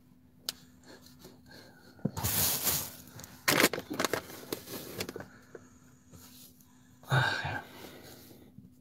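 Rubbing and rustling close to the microphone, with a louder breathy swish about two seconds in, a few clicks a little after, and a short low sound about seven seconds in.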